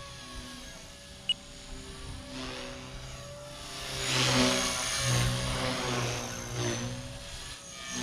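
Blade Fusion 180 Smart electric RC helicopter in flight: the steady whine of its motor and the hum of its spinning rotor blades, pitch wavering as the head speed changes. It grows louder about halfway through as the helicopter passes close, then stays fairly loud. A brief sharp high chirp sounds a little over a second in.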